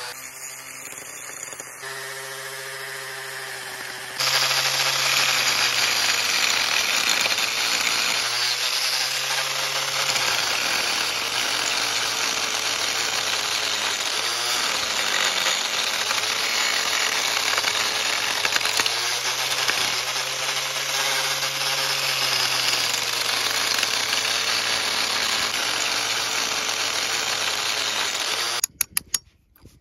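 Angle grinder running against the fiberglass hull around the old shaft log, its motor pitch sagging and recovering as the disc is pressed in and eased off. It gets much louder about four seconds in and stops just before the end.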